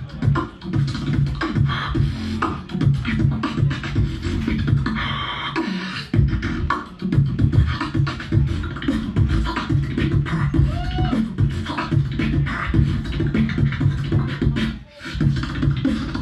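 Human beatboxing through a PA microphone: a dense, bass-heavy rhythm of mouth kicks, snares and clicks. About five seconds in the bass drops out for a short hissing sound, and a few short pitched vocal glides come in just after ten seconds.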